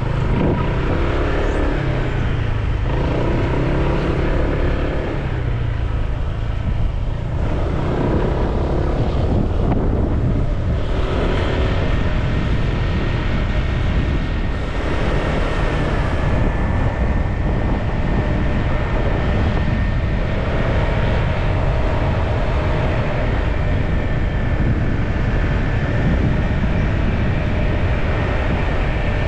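Honda PCX 150 scooter's single-cylinder engine running at a steady road speed, under heavy wind and road noise.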